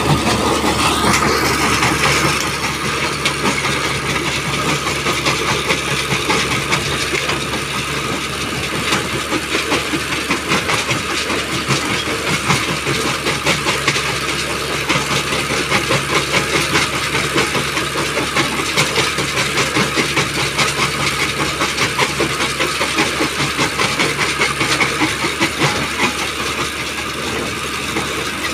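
Mobile stone crusher at work: its engine runs steadily under a dense, continuous clatter of rock being crushed in the jaw.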